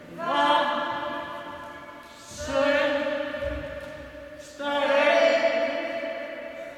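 A group of voices chanting in unison, counting exercise repetitions aloud in Polish: three long drawn-out counts, each held about two seconds.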